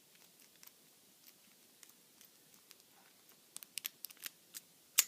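Faint scraping and clicking of a lock pick being wiggled in the keyway of a Master Lock laminated padlock, working its pin tumblers. A cluster of louder clicks comes about three and a half seconds in, then one sharp click near the end.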